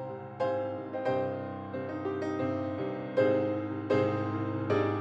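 Background piano music: slow, even struck notes and chords, each ringing and dying away before the next.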